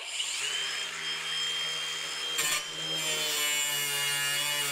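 Ryobi cordless drill running steadily, driving out a fastener on a car's front bumper. The motor whine climbs briefly as it spins up, then holds an even pitch.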